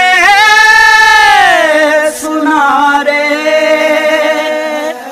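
A singer holding a long, wavering sung note over a steady drone. The pitch slides down about one and a half seconds in, then a second long note is held and cut off near the end.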